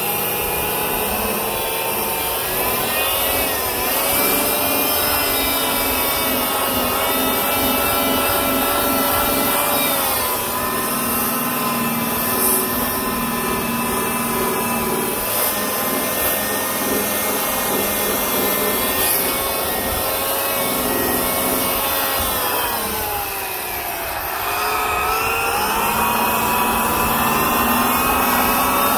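Electric rotary buffer with a wool pad running steadily through polishing work. Its motor pitch sags and recovers a few times, most deeply about three-quarters of the way through, as the pad is pressed into the surface under load.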